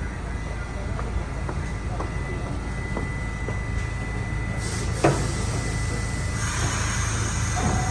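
Low steady rumble in a subway station with a few faint clicks, a sharp clank about five seconds in, then a rising hiss from about six and a half seconds as a train comes in.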